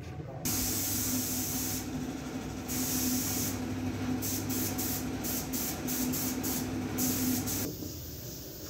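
A small electric power tool's motor running with a steady hum under a loud hiss. It starts about half a second in and cuts off abruptly near the end.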